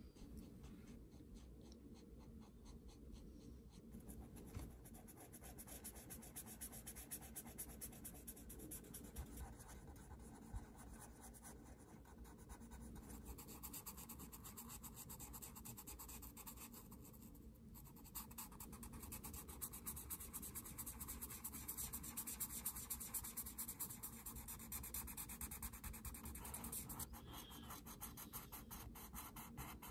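Faint scratching of a brush-tip alcohol marker on paper in quick, repeated short strokes as it colors in a shape. There is a brief pause about two-thirds of the way through, and the strokes are a little louder after it.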